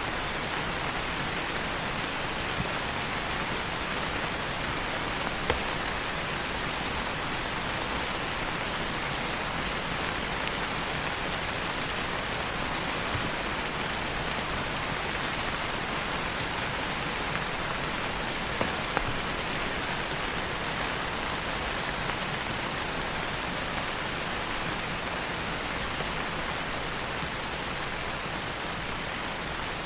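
Steady rain falling on a surface, an even hiss with a few louder drops or ticks now and then.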